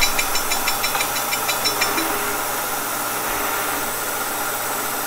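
Kearney & Trecker horizontal milling machine running with its saw blade cutting through a Mopar water neck. Rapid ticking, about six a second, during the first two seconds as the blade finishes the cut, then the mill runs on steadily with the blade spinning clear of the part.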